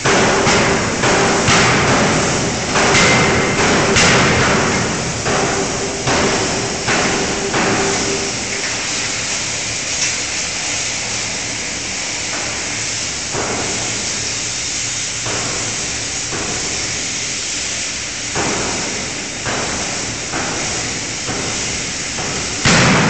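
A 5-ton fully hydraulic closed-die forging hammer striking a hot workpiece in its die: a string of heavy blows about one a second, the loudest near the end. A steady tone sounds under the blows for the first third.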